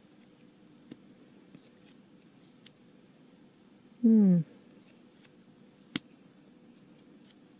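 Trading cards being slid and snapped one at a time through a hand-held stack, giving scattered faint sharp clicks, one louder near six seconds in. About four seconds in, one short voice-like sound falling in pitch is the loudest thing.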